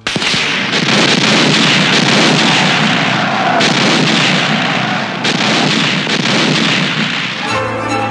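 Artillery shells exploding in a dense, continuous barrage as a film battle sound effect, starting suddenly and renewing with fresh blasts about three and a half and five seconds in. Orchestral film music takes over near the end.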